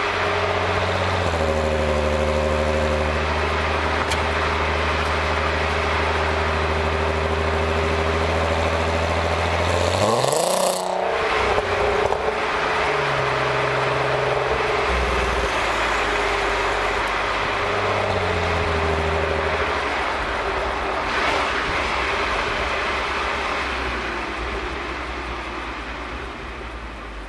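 Stock exhaust of a MkV Volkswagen Golf R32's 3.2-litre VR6, heard close up from the rear bumper with wind and road noise, running at a steady drone while driving. About ten seconds in the revs rise quickly, then the note changes as the revs move around lower down. It grows quieter near the end.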